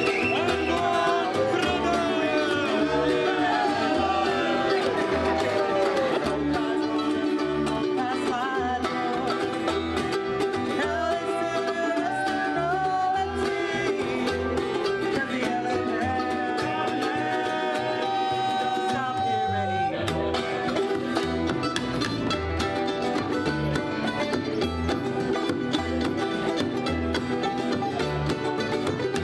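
Acoustic string band playing a bluegrass-style tune on mandolin, acoustic guitar, banjo, ukulele and plucked upright bass, with the bass keeping a steady beat.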